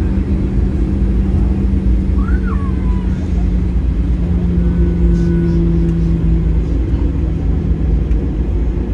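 Airliner cabin noise while taxiing after landing: a steady low rumble from the engines and the wheels rolling on the taxiway, with a hum that steps slightly in pitch a couple of times.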